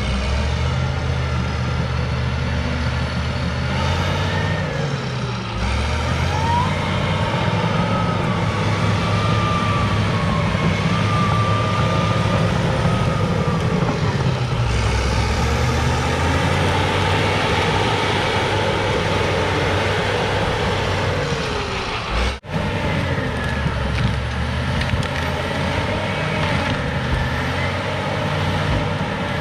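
Cat D6H crawler dozer's diesel engine working hard, its note shifting up and down with the load as it pushes trees and stumps. A wavering high squeal rides over it for several seconds from about six seconds in, and the sound cuts out for an instant about two-thirds of the way through.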